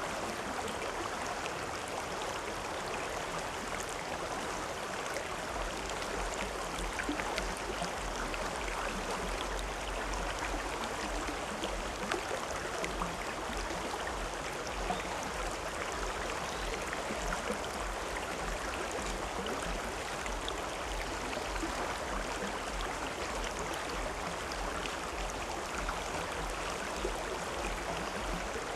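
River water flowing steadily over rocks, an even rushing and burbling. A low rumble joins underneath about five seconds in.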